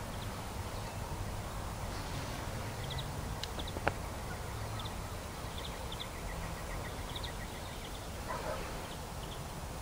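Small birds chirping in short high calls, one giving a quick run of ticks, over a low steady rumble; one sharp click about four seconds in.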